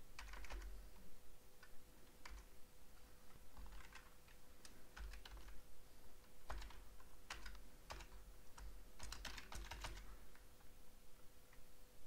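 Computer keyboard typing in short, irregular bursts of keystrokes with pauses between them, as a project name is typed, partly erased and retyped. A faint steady hum lies underneath.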